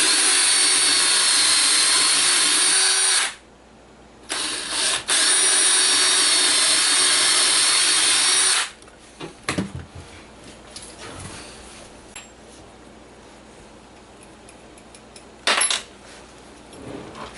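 Electric drill running at steady speed in two runs of about three and four seconds, with a short trigger blip between them, drilling the two screw holes for a drawer handle. Light handling clicks and one brief burst of the drill follow near the end.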